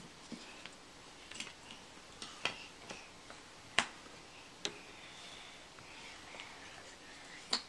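Jigsaw puzzle pieces tapping and clicking against the puzzle board: a handful of sharp, irregular knocks, the loudest just under four seconds in.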